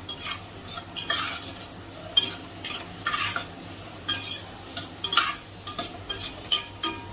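Sliced onions, green chillies, turmeric and salt being stirred in hot oil in a pan: irregular scrapes and taps of the utensil against the pan over a light sizzle of frying.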